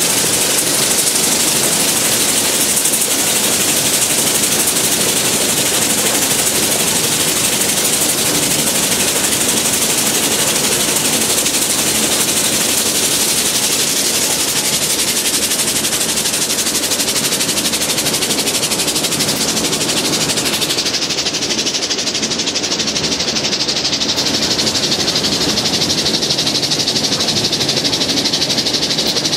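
Mount Washington Cog Railway train running on its rack track, heard from the coach: a loud, steady rush of mechanical running noise.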